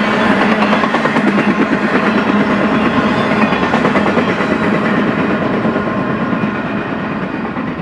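BNSF intermodal freight cars rolling past on the rails, a steady rumble and rapid wheel clatter. It fades over the last couple of seconds as the final car goes by and the train pulls away.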